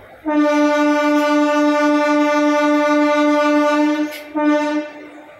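Train horn sounding one long blast of about four seconds on a single steady note, followed by a short second blast.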